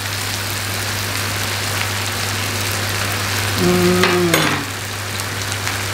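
Beef in green chili paste sizzling steadily in a pan, with a short hummed 'mm' from a person about four seconds in.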